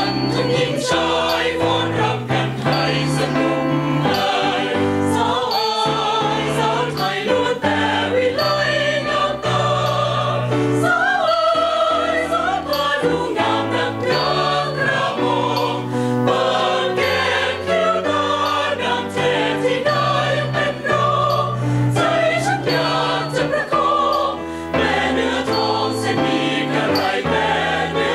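Mixed choir of women's and men's voices singing in harmony, accompanied by an electronic keyboard.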